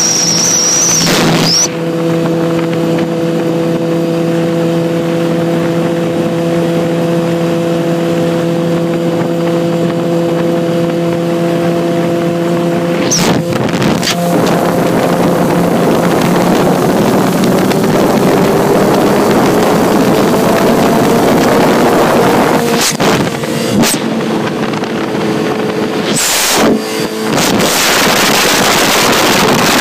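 Yamaha YZF-R6's inline-four engine running at a steady cruise, with heavy wind rushing over the microphone. Past the halfway mark the engine note slowly climbs, and the wind rush grows until it covers most of the engine.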